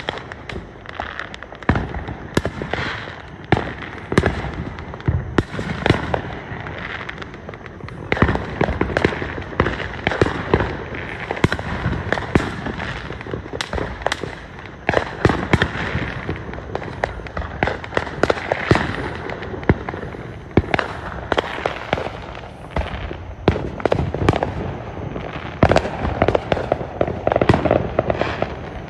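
Fireworks display: a rapid, irregular run of sharp bangs and pops from aerial shells, overlapping with a continuous crackle, with no let-up.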